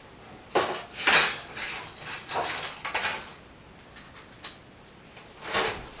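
Short clanks and rattles of metal hardware being handled at a microwave's wall-mount bracket. The loudest comes about a second in, smaller ones follow over the next two seconds, and another comes near the end.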